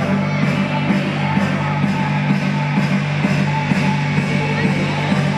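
Loud music with a steady beat over a heavy, sustained low bass.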